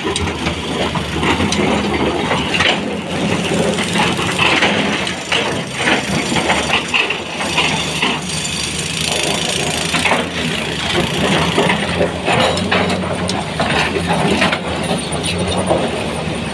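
Sany 240 excavator's diesel engine running steadily under load, with repeated knocks and clatter of stones being picked up and loaded.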